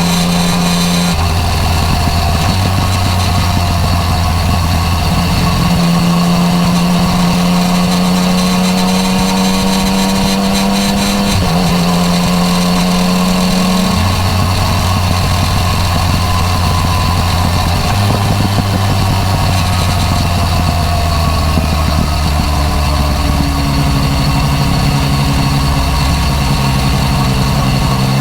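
Yamaha MT-09 Tracer's three-cylinder engine running through an Akrapovič exhaust on the move. The engine note holds steady stretches and steps up and down in pitch several times.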